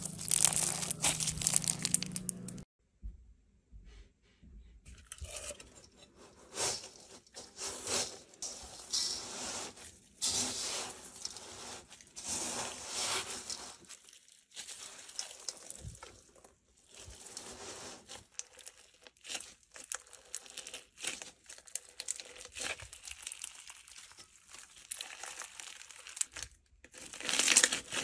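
Crunchy bead-filled slime being squeezed and kneaded by hand, the beads crackling in dense, irregular bursts of clicks. There is a quiet gap about three seconds in, and the crackling grows louder near the end.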